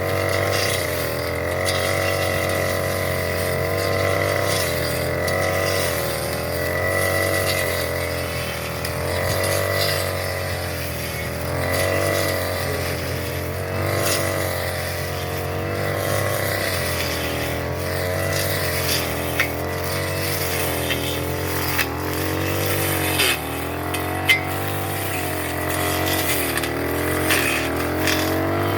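Small petrol engine running steadily, its pitch wavering up and down as the revs shift, with a few sharp ticks in the second half.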